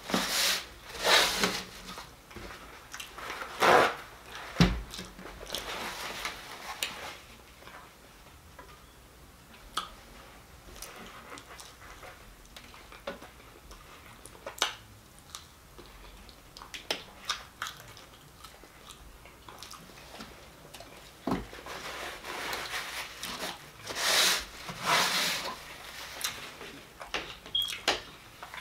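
Close-miked eating of fried fish: bites and chewing, irregular, with a few louder spells. Near the end a spoon scrapes and clinks in a glass bowl.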